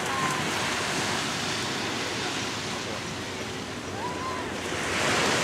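Ocean surf at the beach: a steady rushing wash of waves that swells louder near the end.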